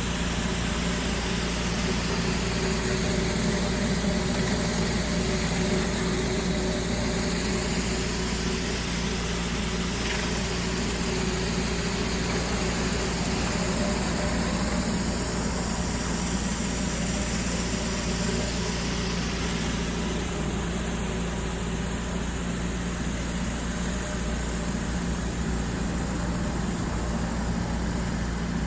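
Pressure washer engine running steadily under a continuous high-pressure water spray hiss.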